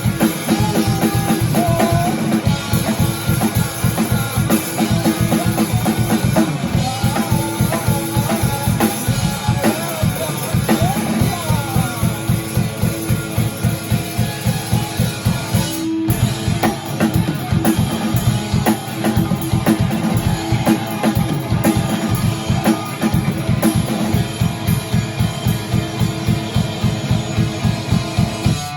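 Rock band playing drum kit and guitars with a steady, driving beat. The music breaks off briefly about sixteen seconds in, then picks up again.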